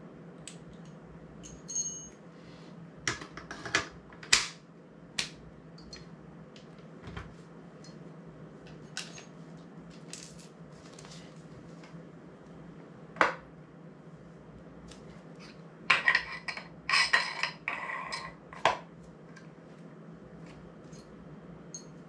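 Small metal camera quick-release parts being handled: scattered sharp clicks and clinks, some with a brief metallic ring, and a short run of clattering near the end.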